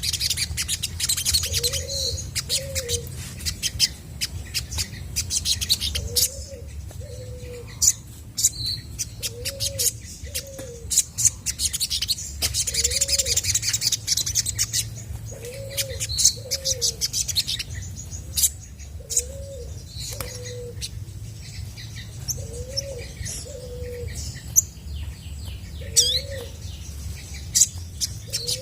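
Olive-backed sunbird singing rapid, high chirps and twittering trills with barely a pause. Behind it, a dove coos a low two-note phrase about every three seconds.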